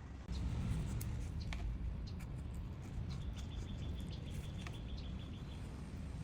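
Birds chirping in short high calls over a steady low rumble, with one thin high note held for a few seconds midway.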